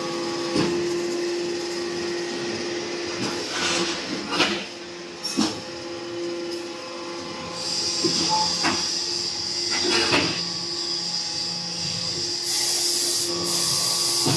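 ZC4-10 automatic interlocking compressed-earth brick machine running: a steady motor hum under a hiss, with sharp clanks about four, five and a half and ten seconds in. A high steady squeal sets in about eight seconds in, and loud hissing comes in two bursts near the end.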